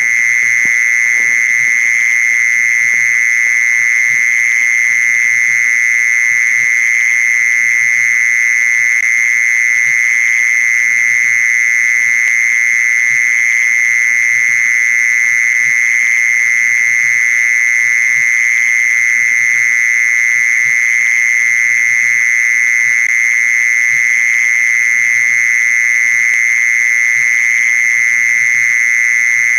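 Mole cricket's song: a continuous, high-pitched trill held steady and unbroken, played as a call to lure mole crickets.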